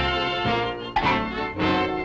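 Orchestral cartoon score with brass, playing a bouncy tune in a steady rhythm.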